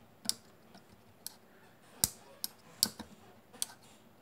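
Small push-button port switches on a USB hub's circuit board clicking as they are pressed off and on, about six sharp clicks at uneven intervals with a few fainter ones between.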